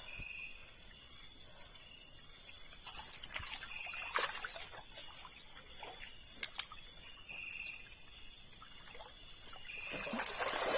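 Night chorus of crickets and other insects: a steady, high-pitched trilling, with a short repeating call every two seconds or so. There are faint clicks and splashes of water underneath.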